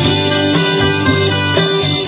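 Instrumental break of a song, with guitars playing and no singing.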